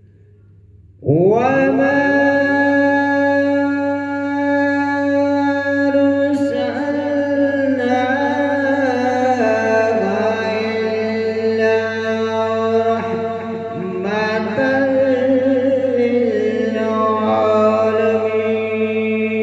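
A man reciting the Quran in a melodic, chanted style into a microphone. It starts about a second in, after a short silence, and goes on in long held phrases with slow glides and ornamented wavers in pitch.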